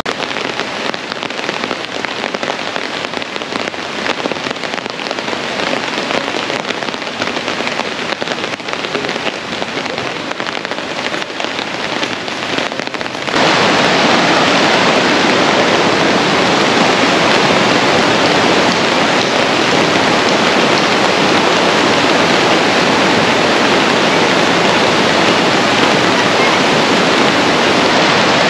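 Heavy rain falling on rainforest foliage, a dense patter. About 13 seconds in, the sound cuts to a louder, steady rush of a swollen, fast-flowing river mixed with the rain: the onset of a flash flood (kepala air).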